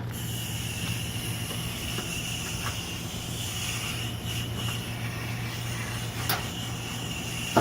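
Steady low machine hum with a constant high hiss that switches on sharply at the start, and a thin steady high-pitched tone running above it.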